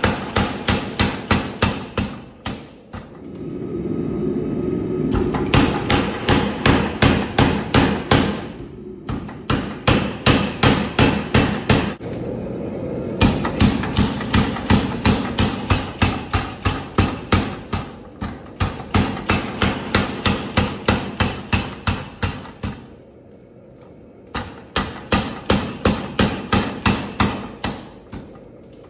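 Homemade 100 lb leaf-spring power hammer pounding a bar of red-hot steel, in rapid runs of about four to five blows a second with a few short breaks between runs.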